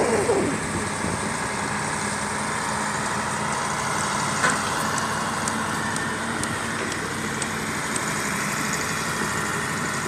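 Heavy diesel engines of a truck-mounted drilling rig and a bulldozer running steadily under load as the rig, its wheels sunk in mud, is pulled free. A single short knock comes about halfway through.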